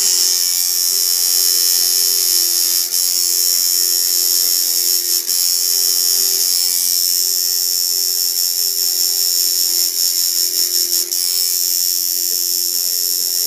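Electric tattoo machine buzzing steadily as its needle works into the skin, with a few brief dips.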